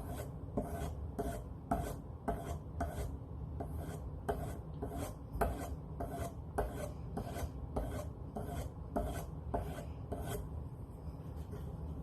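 Leather skiving knife blade stroked quickly back and forth on a compound-charged leather strop, a short rasping stroke about twice a second, stopping shortly before the end. The strokes are honing the edge after the burr has been raised.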